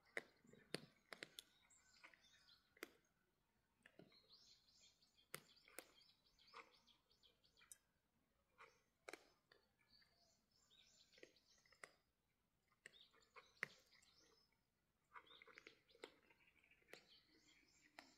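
Cats eating from a bowl: scattered sharp crunches and clicks of chewing, with faint bird chirping in the background.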